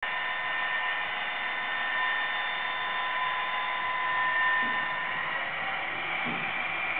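Model train running on the layout: a steady electric whirr with several faint, high, held whining tones that ease off slightly after about five seconds.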